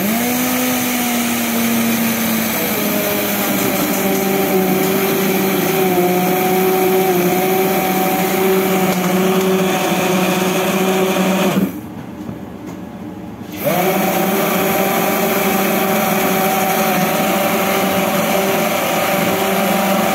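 Immersion (stick) blender motor running steadily while pureeing cooked lentil soup in a pot. It switches off for about two seconds near the middle, then starts again.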